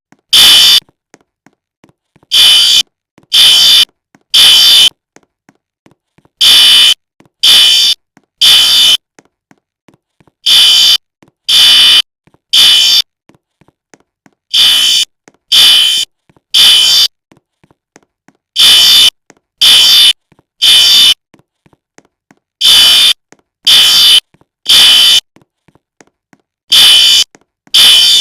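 Fire alarm sounding loudly in the temporal-three pattern: three high-pitched beeps about a second apart, then a pause, repeating about every four seconds. This is the standard evacuation signal.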